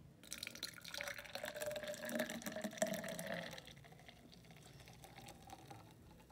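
A brown milky drink poured in a steady stream into a tall pint glass. It splashes loudly for about three and a half seconds, the pitch rising slightly as the glass fills, then the pour goes on more quietly.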